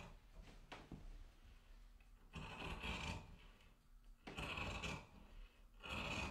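Large tailor's shears cutting through cloth on a table: three faint, long rasping cuts about a second and a half apart, with a couple of light blade clicks before them.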